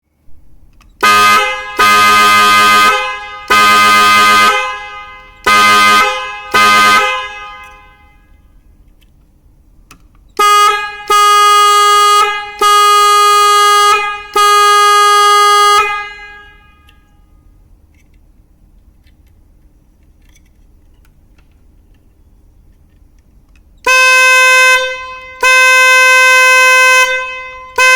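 K8001 car horn sounding in three sets of honks: five short-to-medium honks, then four longer ones, then two long ones. Each honk is a steady chord of several pitches that fades off slowly after release, and the pitch differs from one set to the next.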